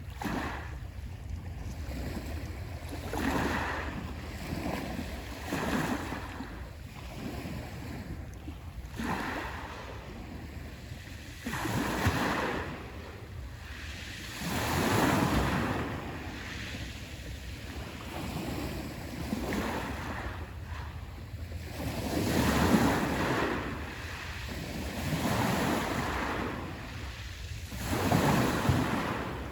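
Sea waves washing onto the shore, each one swelling and falling away every few seconds, with a few louder breakers. Wind rumbles on the microphone underneath.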